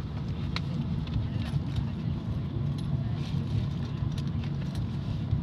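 Steady low rumble of a car's engine and tyres heard inside the cabin of a moving taxi, with a few light clicks and rattles.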